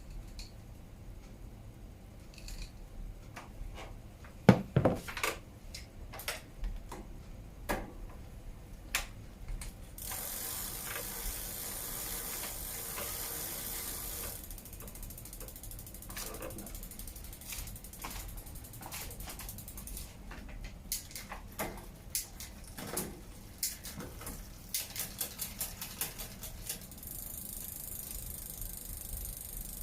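Bicycle rear hub freewheel clicking in rapid ticks for two stretches of several seconds as the wheel or cranks turn. Between these are scattered clicks and knocks from chain and parts being handled, the loudest a sharp knock a few seconds in.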